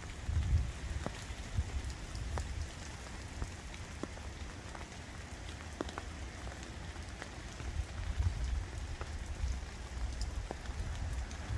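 Steady rain falling, with scattered sharp ticks of individual drops striking close by, over a low, uneven rumble on the microphone.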